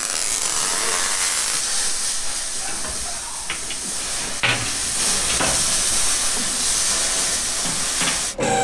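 Electric welding arc crackling and hissing steadily while a steel plate is welded onto the truck's underside, cutting off abruptly near the end.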